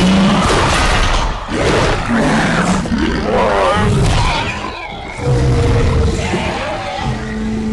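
Dinosaur roars and growls from a film soundtrack: several loud calls one after another, one with a pitch that sweeps up and back down, and a short lull about five seconds in.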